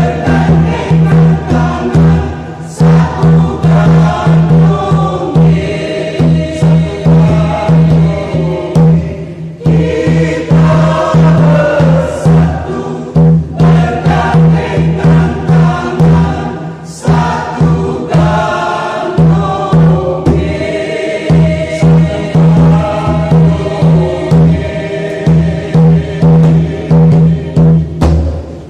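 Mixed church choir singing a lively Indonesian hymn, accompanied by tifa drums beating a steady rhythm. The music ends near the end.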